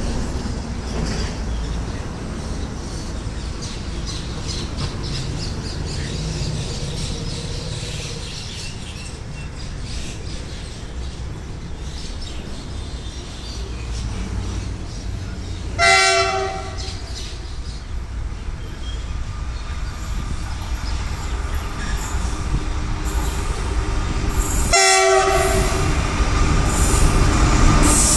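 GE-built WDG-4G diesel freight locomotive approaching with its train: the sound of engine and wheels grows steadily louder as it draws alongside. Its horn sounds twice, a short blast about halfway through and a slightly longer one near the end.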